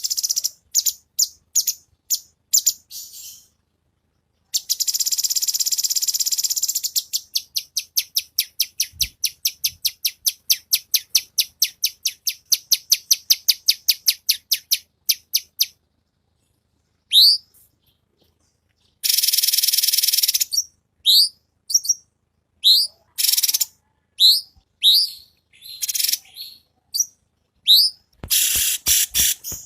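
Cucak cungkok singing in rapid-fire bursts. Dense buzzy trills give way to long fast runs of short high chirps, then to separate upward-sweeping whistled notes, with brief pauses between phrases.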